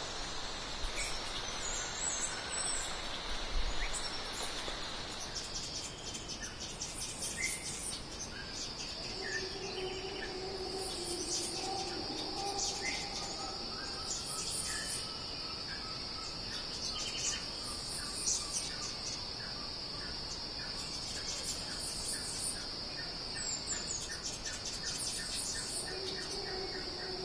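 Forest ambience: a steady high insect drone with scattered short bird chirps and a few longer, lower calls from further off. A soft hiss fades out about five seconds in.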